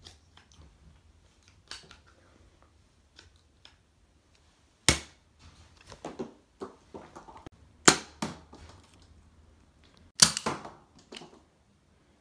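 Nerf foam-dart blasters firing: a few sharp snaps of the spring plunger, about 5 and 8 seconds in and a quick cluster near 10 seconds, with lighter clicks and clatters between.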